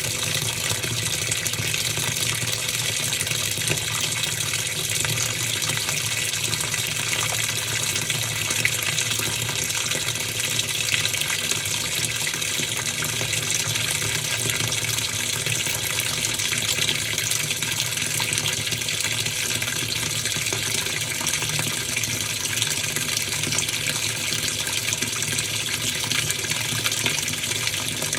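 Top-loading washing machine with water pouring steadily into the tub, as at the fill stage, over a low steady hum.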